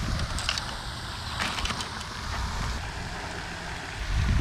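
Wind buffeting the microphone over the steady splashing of a pond fountain, with a few light clicks about half a second and a second and a half in.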